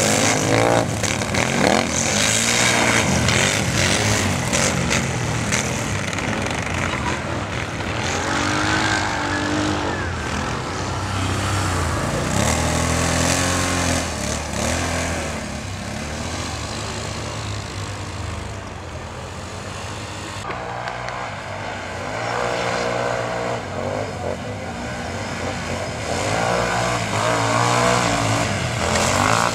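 Racing ATV engines revving hard, their pitch repeatedly rising and falling as the quads accelerate and lift off, over a steady noisy background of engines and tyres.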